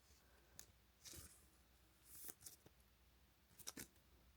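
Faint, brief rustles and clicks of trading cards being slid into soft plastic penny sleeves, several times over a few seconds.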